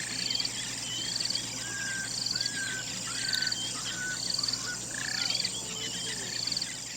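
Wild nature ambience: an insect's high pulsed trill repeating about once a second over a steady high insect drone, with short whistled bird chirps scattered through it. A faint, low, falling call comes about five seconds in.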